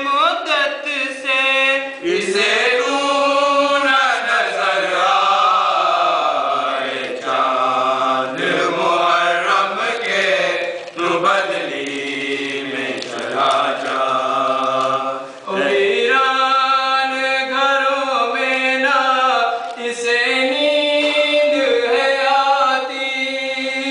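A group of men's voices chanting an Urdu noha, a Shia mourning lament for Muharram, together and without instruments. There is a short break about two-thirds through before the chanting picks up again.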